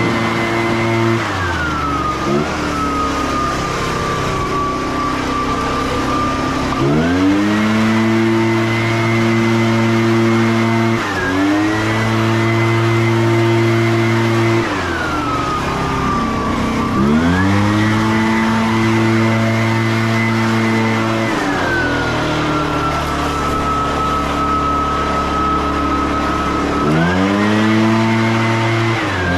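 Leaf blower throttled up and down: it drops to idle about a second in, then revs back up to full speed three times, each time falling back to idle after a few seconds.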